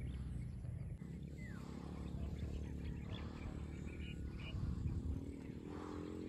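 Small motorcycle engine pulling up a steep dirt slope, a steady low drone whose pitch climbs in the last couple of seconds as it is revved harder.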